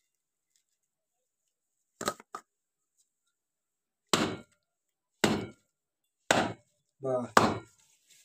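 Hard blows on a raw coconut, breaking it open: two light knocks, then a series of heavy strikes about a second apart.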